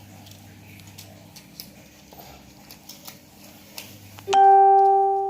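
Faint clicks and handling noise, then about four seconds in a single loud electronic tone comes on suddenly, holds steady on one pitch for about a second and a half and fades away.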